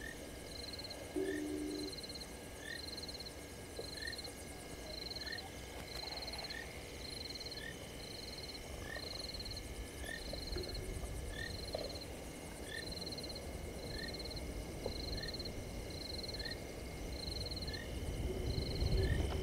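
Frogs calling at night: a short high call repeats steadily a little more than once a second, with a shorter, lower chirp keeping a similar beat over a steady high background. A low rumble builds near the end.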